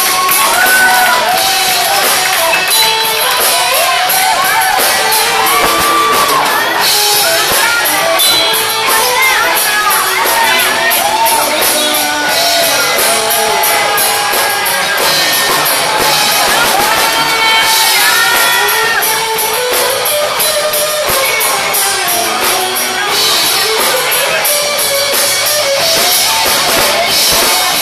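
Live rock band playing loudly, with drums keeping a steady beat, guitar and a singing voice.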